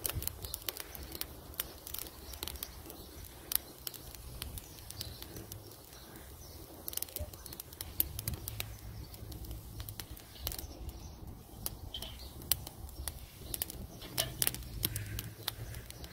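Small twig-and-stick fire in a metal fire bowl crackling, with irregular sharp snaps and pops as the fine wood catches.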